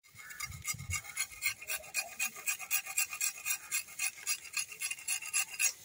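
Curved aruval sickle blade being sharpened by hand, its edge scraped in quick, even strokes with a faint metallic ring, about four strokes a second, stopping suddenly near the end.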